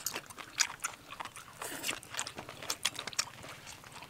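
Close-up eating of a cow intestine salad with rice: a run of short, irregular mouth clicks from chewing.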